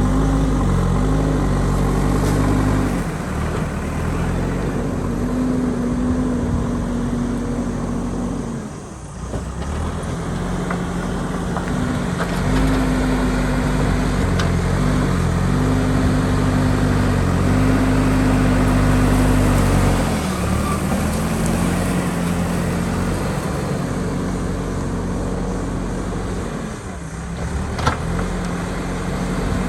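JCB ecoXcellence backhoe loader's diesel engine working under load, its pitch rising and falling as the machine digs, easing off briefly about nine seconds in and again near the end. A sharp knock sounds near the end.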